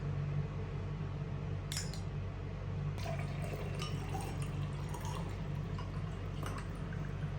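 Liquid trickling and dripping into a glass, with a sharp clink about two seconds in and small light ticks after that, over a steady low hum.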